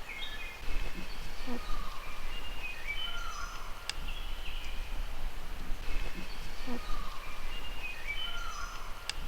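An animal calling in woodland: a phrase of short, high, stepped-down whistled notes with a falling whistle and lower sliding notes, given twice about five and a half seconds apart. The hikers could not identify it and took it for neither a bird nor a bobcat.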